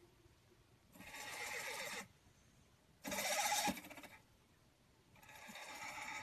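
A cat asleep on its back snoring: three snores about two seconds apart, each lasting about a second, the middle one loudest.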